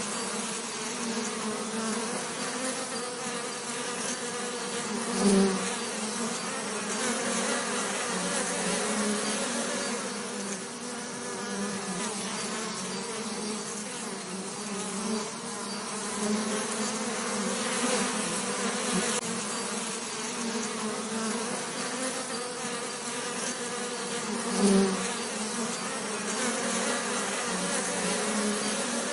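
Bees buzzing in a steady, continuous drone. A louder buzz swells briefly twice, as a bee passes close.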